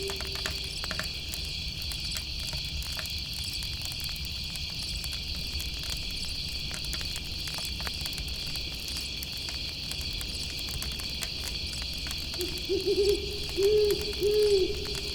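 Night-insect chorus of crickets chirring steadily, with the faint crackle of a campfire underneath. An owl hoots; one hoot fades out at the start, and a short run of three or four low hoots comes near the end.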